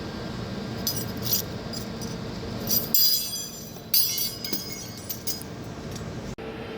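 Heavy-duty lathe turning a large steel part: a steady machine hum under repeated bright metallic clinks and crackles as steel chips break off the cut and fall. The hum changes abruptly about three seconds in and again near the end.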